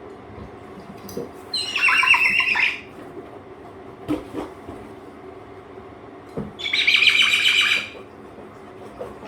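A cockatoo screeching twice, two loud harsh calls of just over a second each, about five seconds apart, over a steady low hum.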